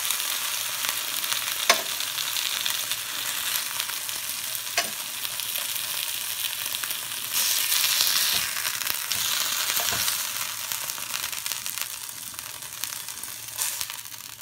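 Chicken breast fillets sizzling in a hot non-stick frying pan, with a few sharp clicks of a fork against the pan as pieces are lifted out. The sizzling swells briefly about seven seconds in, then fades toward the end as the pan empties.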